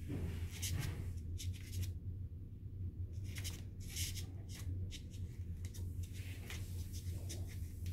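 A spoon handle scraping and tucking ripstop nylon fabric into the foam sleeve at the base of a lightsaber blade. Short, scattered rustles and scratches sound over a steady low hum, with a quieter stretch about two seconds in.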